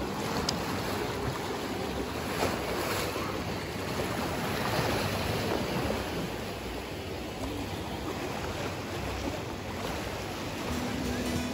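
Small sea waves washing against the shore, a steady rushing wash, with some wind on the microphone.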